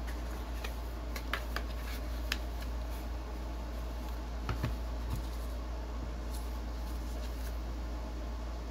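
Cardboard phone packaging handled by hand: a few light clicks and taps about a second or two in, and a couple of soft knocks at about four and a half seconds as pieces are lifted and set on the desk. A steady low hum runs underneath.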